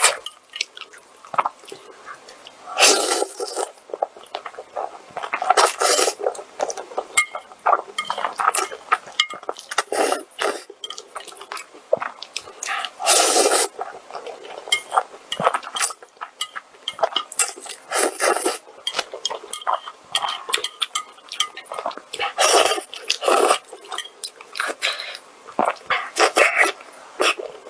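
Close-miked mukbang eating sounds: irregular biting and chewing in short bursts.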